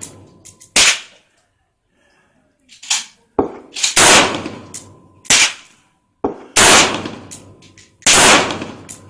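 AR-15 rifle firing 5.56 NATO rounds: about six loud cracks at uneven intervals of one to two seconds, plus a fainter shot, each trailing off in a long echo.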